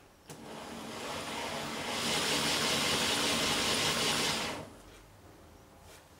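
G-scale model tram's motor chassis running on roller stands under decoder control: it speeds up over about two seconds, runs steadily with a faint high whine, then stops abruptly.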